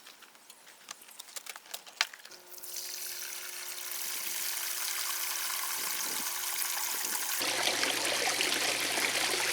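Water trickling and splashing in a plastic resin garden fountain, starting after a few faint clicks and running steadily with a low hum beneath it. About seven seconds in the sound shifts abruptly to a louder, fuller trickle with a lower hum.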